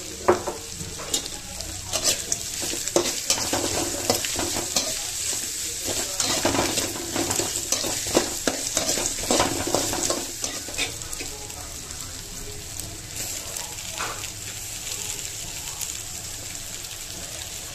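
Shallots, garlic and dried red chillies frying in oil in a metal kadai, sizzling steadily, while a metal spatula scrapes and knocks against the pan as they are stirred for about the first ten seconds; after that the sizzle goes on with only an odd click.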